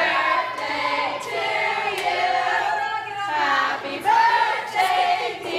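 A group of voices singing together in held, sustained notes, with short breaths between phrases.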